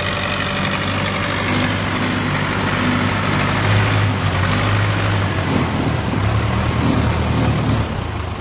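Case 580K backhoe loader's diesel engine running steadily, its note growing louder a few times and easing off near the end.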